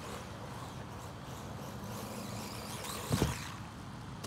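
Wltoys 144001 RC car's electric motor whining faintly as it drives some distance off, with a brief rev about three seconds in.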